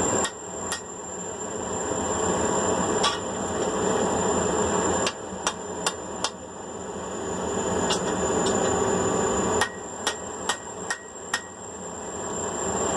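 Hand hammer striking 5/8-inch round steel on an anvil, closing up the forged rings that link the tripod legs. About a dozen sharp, ringing blows come in loose groups (two at the start, one near three seconds, four in quick succession around five to six seconds, then a run of five near the end) over a steady rushing background.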